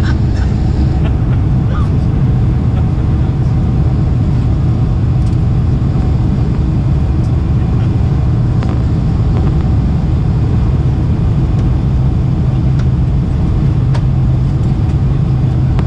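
Steady cabin roar of a Boeing 747-400 airliner descending on approach, engine and airflow noise heard from a window seat over the wing, with a few faint ticks.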